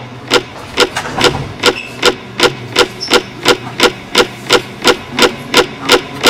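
A steady, rapid beat of sharp knocks, a little over two a second and evenly spaced, over a low steady hum: a tense percussive soundtrack.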